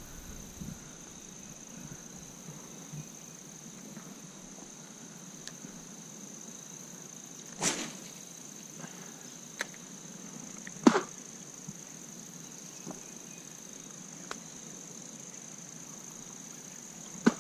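A steady high insect drone, like crickets, with two short whooshes of a fishing rod being cast, about eight and eleven seconds in, the second the louder, and a few faint clicks between them.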